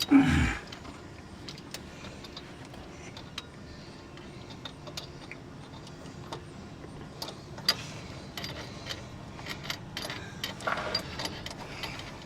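Scattered light metallic clicks and clinks of hand tools and bolts being handled during driveshaft work, with a brief louder noise right at the start.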